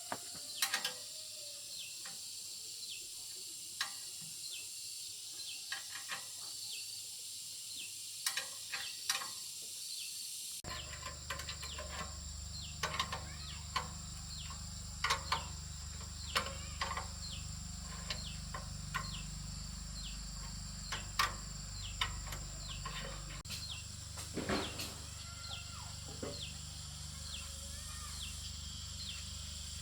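Steady high-pitched insect drone with many short chirps and clicks scattered through it. About ten seconds in, the background changes abruptly and a low hum comes in underneath.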